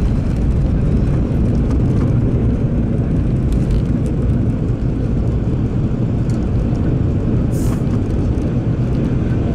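Steady low rumble of an airliner cabin during the landing rollout on the runway: engine and wheel noise heard from inside the plane. A brief faint click about two seconds before the end.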